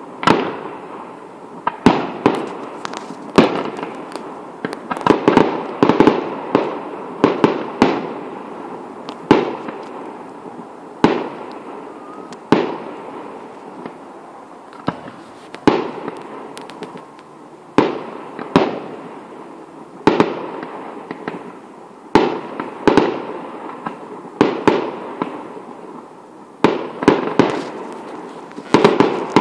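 Fireworks display with a steady run of aerial shell bursts. Sharp bangs come every second or two, some in quick clusters, and each trails off in a rolling echo.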